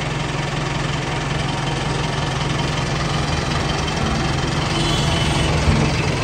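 Mahindra 555 DI tractor's diesel engine running steadily at idle, getting slightly louder about five seconds in.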